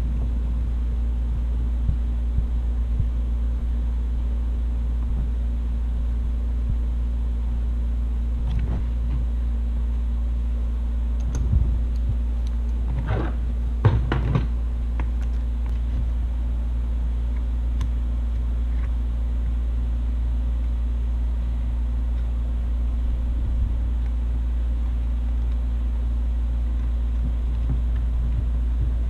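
A steady low hum runs throughout. Over it come scattered light clicks and rattles of small hardware and tools being handled against a plastic ammo box, with a short cluster of clicks near the middle as pliers work a banana jack into the lid.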